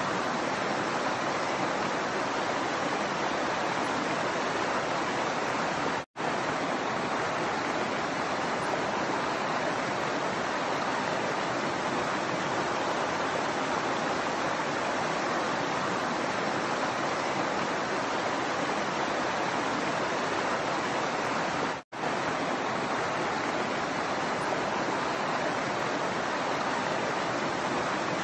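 Shallow rocky stream flowing over and between boulders in small cascades: a steady rush of water. The sound cuts out for an instant twice.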